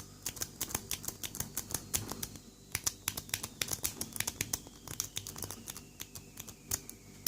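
Lock pick working the pin stack of a Lockwood 40mm padlock under tension: irregular small metallic clicks and ticks, several a second, as pins are lifted and set.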